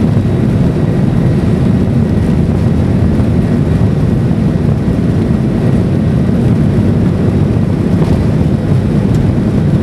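Airbus A320 cabin noise during the takeoff run: a loud, steady, low rumble of the jet engines at takeoff power and the wheels on the runway, heard from inside the cabin.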